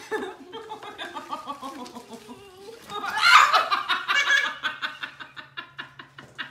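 Hearty human laughter in quick repeated pulses, loudest about three seconds in and trailing off into short breathy gasps near the end.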